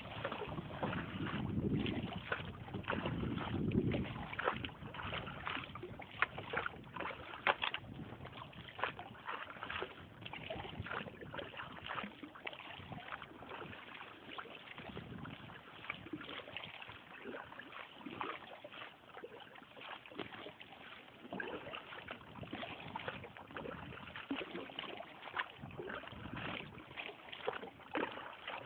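A canoe paddled through floodwater: the paddle splashes and drips in a steady run of strokes. Wind buffets the microphone in low gusts near the start.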